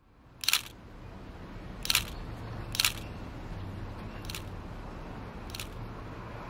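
Nikon digital SLR camera shutter firing five times at uneven intervals, each a sharp click; the last two clicks are fainter.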